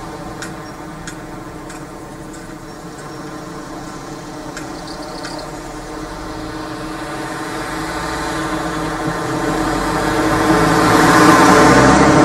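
Car engines as road traffic crosses the tracks, with a small van's engine growing steadily louder as it drives over the crossing and approaches, loudest near the end.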